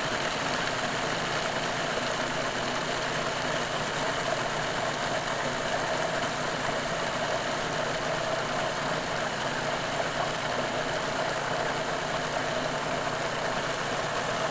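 Cuisinart food processor motor running steadily, blending ingredients into a smooth liquid batter.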